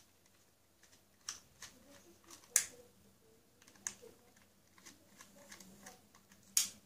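Faint clicks and ticks of a small screwdriver turning out the screws that hold the metal mounting frame to a laptop hard drive, with two sharper clicks about two and a half seconds in and near the end.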